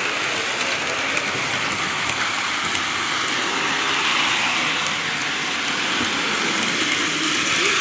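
O-scale model commuter train running on three-rail track: a steady rushing rumble of metal wheels and motor, swelling a little as the cars pass close by.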